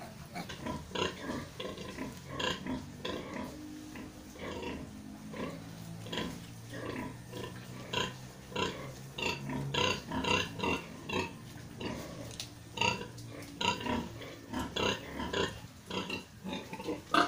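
A sow and her litter of newborn piglets grunting and squealing while the piglets suckle, many short calls in quick succession.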